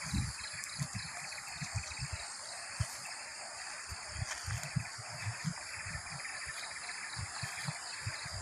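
Outdoor ambience of a steady, high, pulsing insect chorus over an even hiss. Soft low thuds of footsteps on dirt and gravel come a few times a second.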